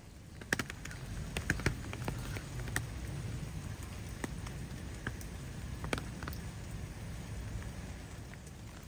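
Light rain falling, with individual raindrops ticking sharply close by, most of them in the first three seconds, over a steady low rumble.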